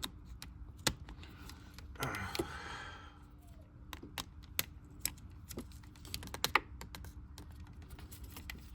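Small, irregular plastic clicks and taps of fingers and a tool working at an automotive wiring-harness connector, prying off its blue locking cap to reach the pins. A brief rasp comes about two seconds in.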